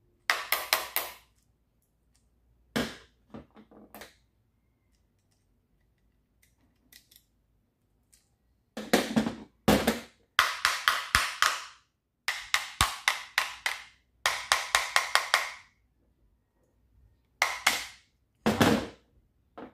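Rattling clicks from a dismantled electric sander as it is shaken and handled, in bursts of rapid clicks about a second long, repeated several times with short pauses between.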